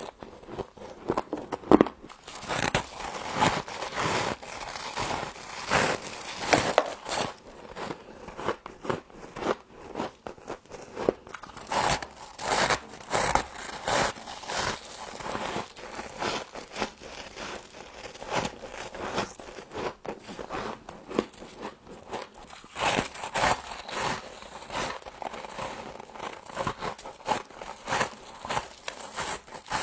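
A person biting and chewing crunchy frost: a continuous run of crisp crunches and crackles.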